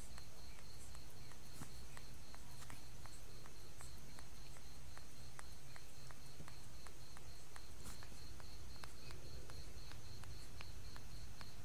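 Baby macaque sucking on another monkey's fur as if nursing: soft, irregular clicks a few times a second, over a steady low hum and a high, evenly pulsing chirp.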